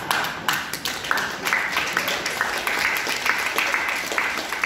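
Audience applauding: many quick, irregular claps over a steady din.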